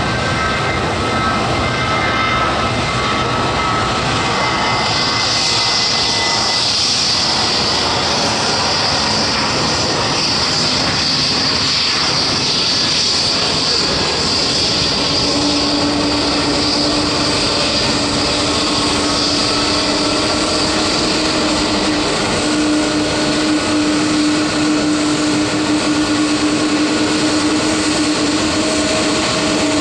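Boeing 777-200 airliner's jet engines running with a steady whine over a loud rushing noise as it is pushed back by a tug. A high whine comes in about five seconds in and fades later, and a lower steady hum joins about halfway through.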